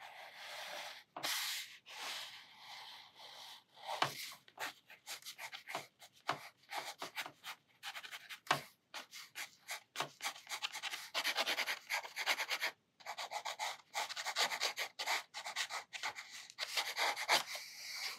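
Sakura Micron fine-liner pen scratching across watercolour sketchbook paper in many quick, short strokes as ink lines are drawn.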